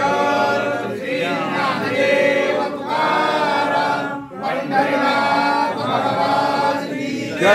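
Several voices chanting a devotional hymn in unison, in long held notes with brief pauses for breath.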